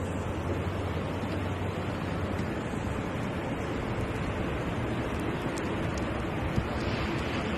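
Steady rushing of blizzard wind outdoors, with a low rumble on the microphone.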